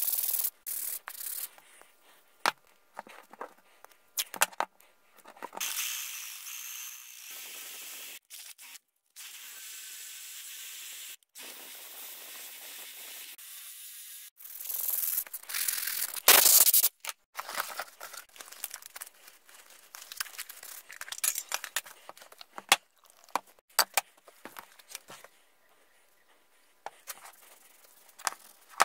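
A string of short, cut-together woodworking sounds. Hands handle and rub wooden blocks. About halfway through comes the loudest part, a cordless drill spinning a sanding disc against a clamped wood block. Near the end there is soft rubbing as finish oil is wiped onto the wood with a sponge.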